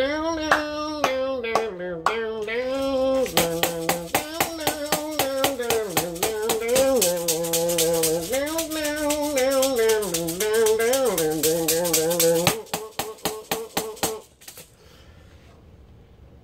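Maracas shaken in a quick, steady rhythm under a man's wordless sung blues melody. The melody stops about twelve seconds in, a few last maraca shakes follow, then only faint room sound.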